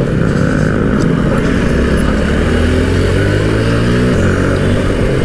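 Motorcycle engine running under way, its pitch climbing slowly and then dropping sharply about four seconds in, over a steady rush of wind noise.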